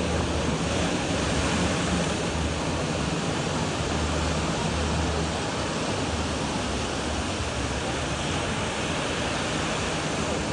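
Ocean surf washing onto a beach, a steady, unbroken rush of noise.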